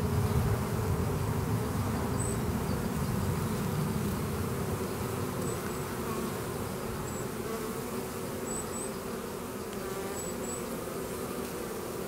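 Honeybees buzzing at the entrance of a busy hive: a steady hum of many worker bees flying in and out, with a few faint high chirps in the background.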